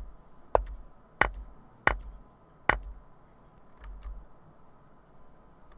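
Sharp clicks as moves are stepped through on an online chess analysis board. There are four clicks about two-thirds of a second apart in the first three seconds, then two faint ticks around four seconds in.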